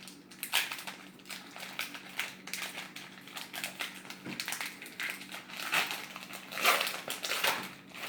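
Foil Pokémon card booster pack crinkling and rustling in the hands as it is opened, in quick irregular crackles, loudest about two thirds of the way in.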